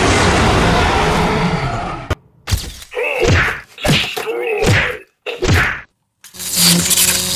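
Edited-in cartoon fight sound effects. A loud rushing fire-breath blast runs for about two seconds and cuts off. Then come four or five quick whacks, each with a groan that falls in pitch, and a steady buzzing hum starts near the end.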